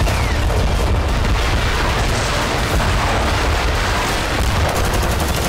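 Battle sounds: a steady, deep rumble of explosions and blasts.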